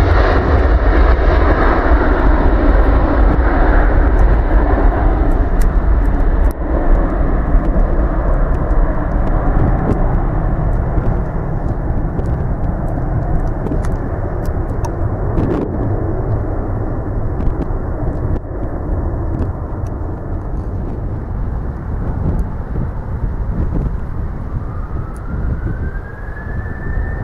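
Boeing 767 jet engines at takeoff power as the airliner lifts off, a loud roar that slowly fades as it climbs away. Near the end a rising whine comes in.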